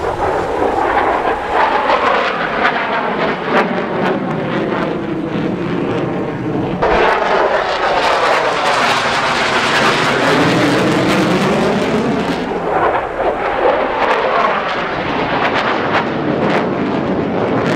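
Loud rushing noise of jet aircraft flying over at an air show, with a sweeping, phasing whoosh as they pass. The sound changes abruptly about seven seconds in, where one pass gives way to another.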